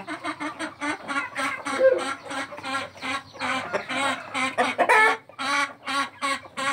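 A flock of Indian native (natukodi) chickens clucking: many short calls in quick succession from hens and roosters.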